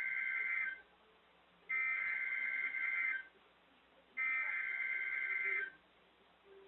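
Emergency Alert System SAME header: bursts of digital data tones, the first ending under a second in and two more about a second and a half long each, separated by pauses of about a second. They encode the header of the severe thunderstorm warning that follows.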